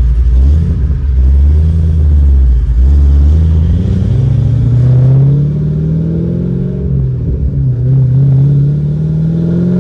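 Chevrolet Camaro Z28's 7.0-litre V8 accelerating on the road. The engine note climbs about halfway through, settles and dips, then climbs steeply again near the end.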